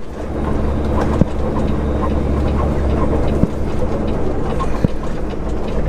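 Steady low rumble of a semi-truck's diesel engine heard from inside the cab, with a few short sharp knocks or rattles.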